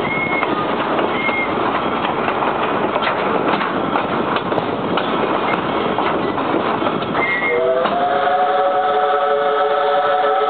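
A train running, with a steady rushing clatter and brief high tones about once a second. About three-quarters of the way through, its whistle starts with a short upward slide and holds a steady chord of several notes.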